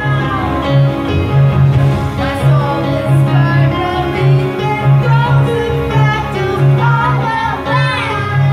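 A woman and a small boy singing into a microphone over a backing track played through a PA speaker, with a steady bass line.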